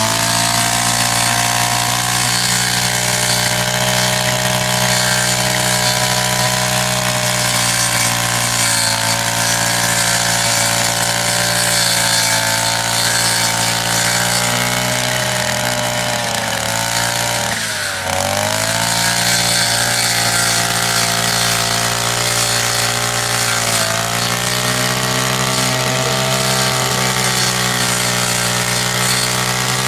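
Push-type wheeled brush cutter's 52cc two-stroke engine running at high throttle as its spinning head cuts grass. The engine note holds steady, sagging briefly three times under the load and picking back up, most deeply a little past the middle.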